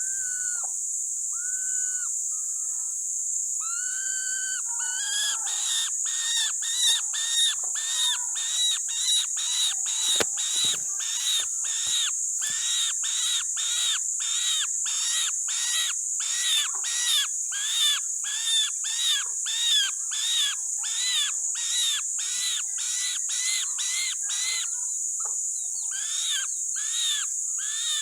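A bird calling over and over: a few longer whistled notes at first, then a long run of short, arched call notes at about two a second, with a brief pause near the end. A steady high hiss runs underneath.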